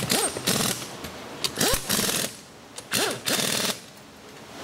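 Pneumatic impact wrench tightening the cylinder head nuts of a 125cc motorcycle engine. It runs in three short hammering bursts, each spinning up and winding down in pitch.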